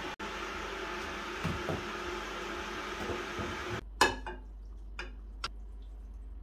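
A steady hiss-like noise that cuts off abruptly about four seconds in, then a frying pan is set down on a gas stove's metal grate with one loud clank, followed by a few lighter knocks.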